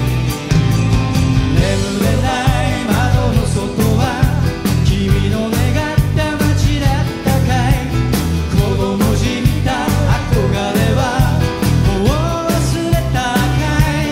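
A live rock-pop band playing a song: electric guitars, bass and a drum kit keeping a steady beat, with a man singing lead over it from about two seconds in.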